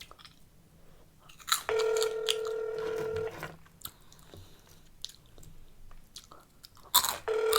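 Phone ringback tone over a speakerphone while a call is placed: a steady two-note purr that rings twice, each ring about a second and a half long with about four seconds between. Chips being chewed and crunched fill the gap between rings.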